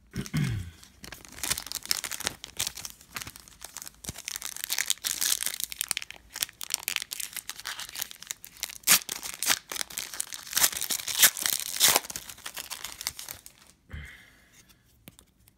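The crinkly wrapper of a Panini Prizm basketball card pack being torn open and crumpled by hand: a long run of irregular ripping and crackling, loudest in a few sharp rips near the end.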